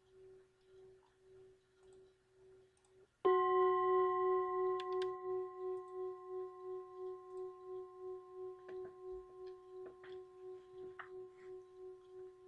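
Tibetan singing bowl struck about three seconds in, ringing with a hum and several overtones that pulse about twice a second and slowly fade. Just before the strike, a fainter ring from the previous bowl is cut short.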